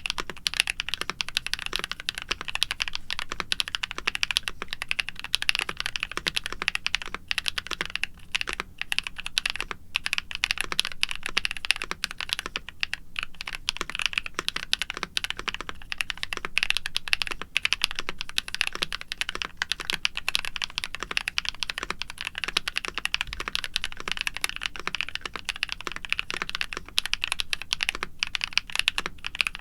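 NuPhy Halo65 mechanical keyboard with lubed Gateron Night Breeze linear switches, an aluminium plate and doubleshot PBT keycaps, typed on continuously: a dense, steady run of keystrokes with a few brief pauses.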